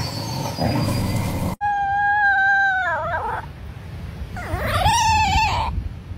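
A small Chihuahua howling, two long howls: the first held steady, then wavering and dropping away; the second rising into a held note near the end. Before the howls there is about a second and a half of outdoor rustling noise that cuts off abruptly.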